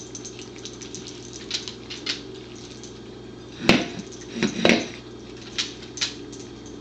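A corgi licking and nosing an empty plate on the floor: a string of small wet tongue clicks, with a sharp clatter of the plate on the floor about three and a half seconds in and a few more knocks just after.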